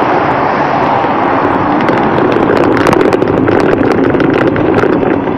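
Steady rush of traffic and riding noise from a moving bicycle on a busy road, with frequent sharp clicks and rattles throughout.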